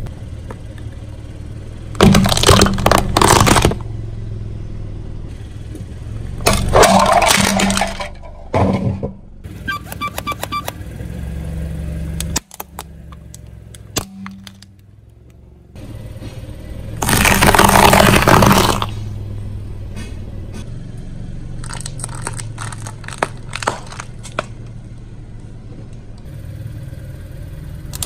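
A car tire rolling over and crushing objects one after another: crunches, cracks and splats of plastic toys and wet floral foam breaking under the wheel, over a low, steady engine hum. Loud crushing comes about 2 s in, near 7 s and around 17 to 18 s, with lighter crackling and clicking between.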